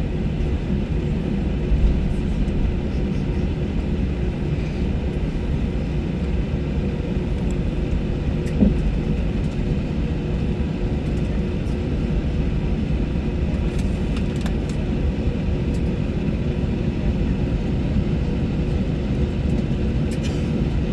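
Steady rumble and hum inside the cabin of an Airbus A321 on the ground after landing, with its engines running at low power, and a few faint clicks.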